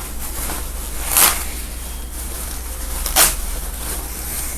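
Two short rasps of gown fabric being pulled or cut apart, about two seconds apart, over a steady low electrical hum.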